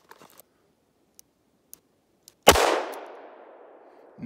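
A single shot from a Ruger LCR snub-nose revolver (1.9-inch barrel) firing a 125-grain .38 Special +P hollow point: one sharp report about two and a half seconds in, followed by an echo that dies away over about a second and a half.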